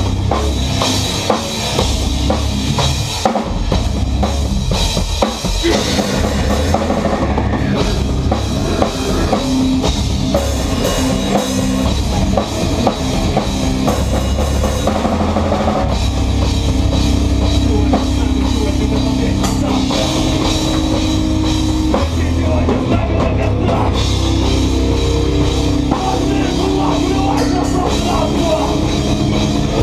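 Loud live rock band playing: distorted electric guitars, bass and a drum kit with cymbals, heavy and continuous.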